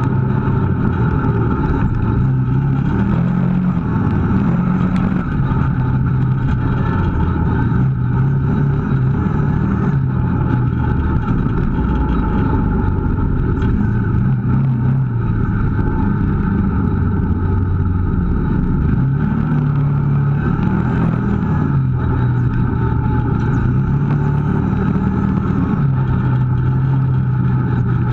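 Kawasaki KVF 650 ATV engine running under way on a dirt trail, its pitch rising and falling repeatedly with the throttle.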